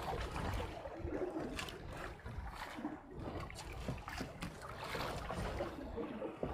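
Water slapping and splashing against the hull of a small fishing boat at sea, with wind rumbling on the microphone and scattered short knocks.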